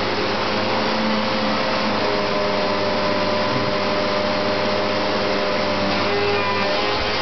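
Vacuum cleaner running steadily, a constant rush of air with a steady motor hum.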